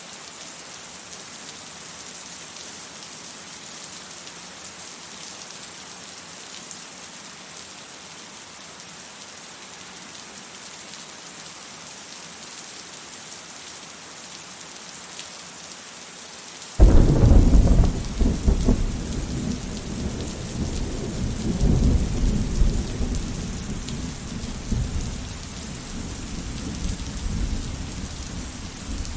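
Steady rain. About two-thirds of the way through, a sudden loud clap of thunder breaks in and rolls on as a deep rumble, slowly fading.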